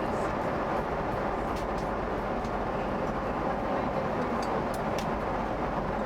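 Steady cabin noise of a Boeing 777-200ER airliner: an even, constant rush of air and engine hum, with a few faint light clicks.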